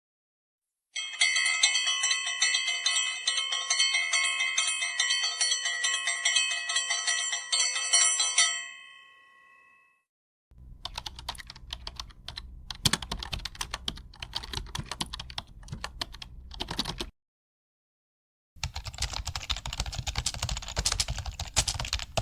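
A bell sound effect rings steadily for about eight seconds and then dies away. Then come two computer keyboard typing sound effects: a run of key clicks for about six seconds, a short pause, and a second, denser burst of typing.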